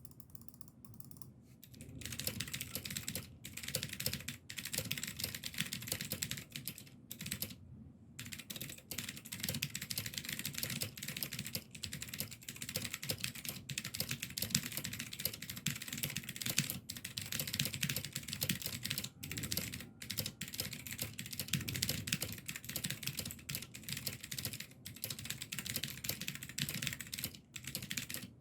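Continuous fast typing on a Womier K87 tenkeyless mechanical keyboard with clicky Gateron Blue switches in a layered glass case, starting about two seconds in with a short pause near the end of the first third. The clatter is out-of-the-box and unlubed, and quieter than blues usually are, which the owner puts down to the glass case damping the switches.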